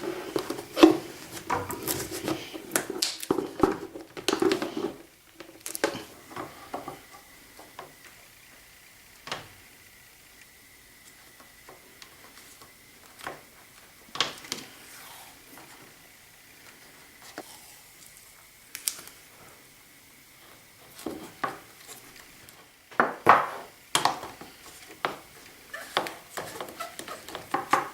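Hard plastic parts clicking, knocking and rubbing as PVC fittings and a vacuum hose are handled and pushed through holes in a plastic bucket lid. It starts with a few seconds of busy rubbing and clatter, then scattered single clicks, then another cluster of knocks near the end. A faint steady high tone runs through the middle.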